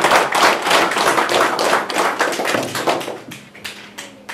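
Applause from a small crowd, hand claps packed together, thinning out and dying away after about three seconds, with a few last separate claps near the end.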